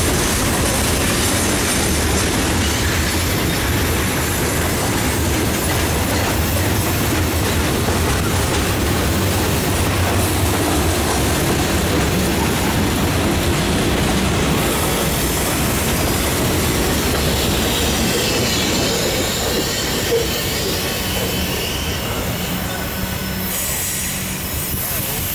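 Freight cars of a mixed freight train rolling past at close range, steel wheels running on the rails in a steady rumble. The sound eases off near the end as the last car goes by.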